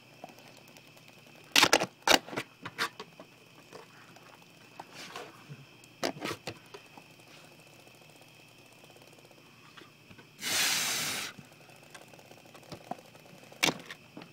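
A dog nosing at a chewed wooden baseboard, with clusters of sharp clicks and knocks against the wood. About ten seconds in comes a loud, breathy sniff lasting about a second. A faint steady high trill, like a cricket, runs underneath.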